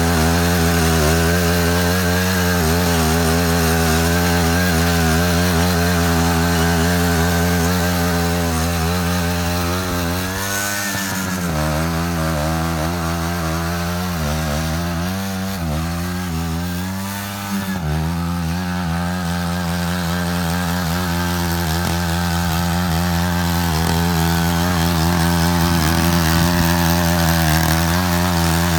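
Matsuda walking tractor's engine running steadily while it cuts a ditch, its pitch dipping and recovering a few times midway as it takes load.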